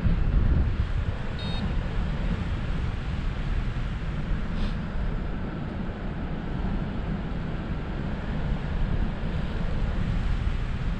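Wind rushing and buffeting over the microphone during paraglider flight, a steady low rumble. A brief high electronic beep sounds once about a second and a half in.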